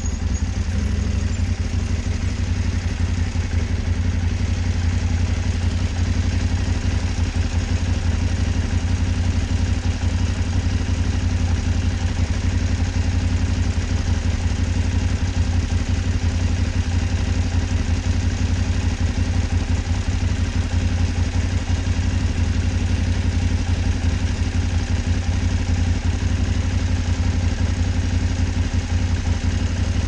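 Motorcycle engine idling steadily, heard close up from a camera mounted on the bike.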